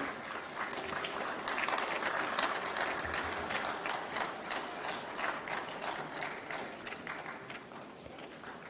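Audience applauding: many hands clapping in a steady, dense patter that thins a little near the end.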